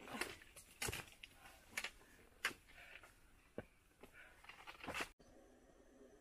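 Footsteps on a rocky mountain trail: a handful of irregular crunching steps, about one a second, that stop abruptly about five seconds in. After that only a faint steady hum remains.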